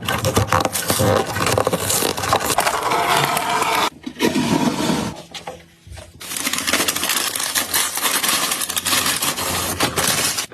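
Dense crackling and rustling handling noise in two long stretches, broken by a short lull about four seconds in.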